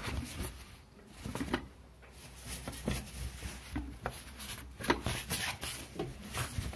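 A terry-cloth towel rustling, with a few light knocks, as it is wrapped around a lidded stainless-steel pot to keep the cooked barley steaming.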